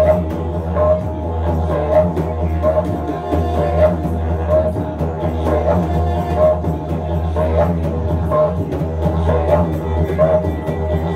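Live band playing an instrumental groove: a steady low didgeridoo drone under hand-drum strokes, with saxophone and sousaphone. A short higher figure repeats about once a second.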